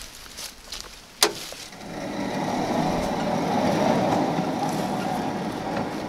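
A sharp click about a second in, then the steel head carriage of a TimberKing 1220 band sawmill rolling along its track rails as it is pushed by hand, a steady rumbling that swells and then eases off.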